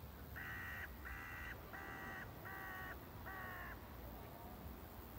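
A bird calling five times in a steady series, each call about half a second long and less than a second apart, followed by a fainter sixth call.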